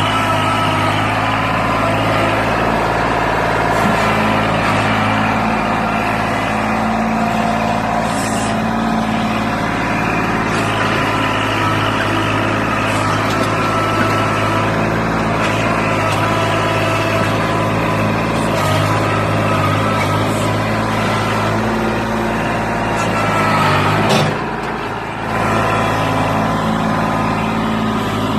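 Vehicle engine running steadily with road noise. Near the end the engine note rises briefly, then dips in level for about a second before settling back, like a shift or a let-off of the throttle.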